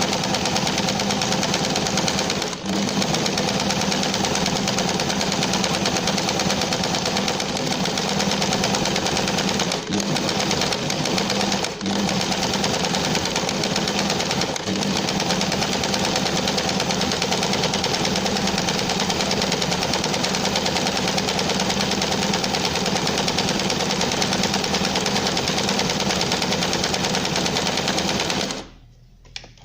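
Domestic sewing machine running fast and steadily, stitching free-motion embroidery with an embroidery presser foot. It falters briefly a few times and stops about a second before the end.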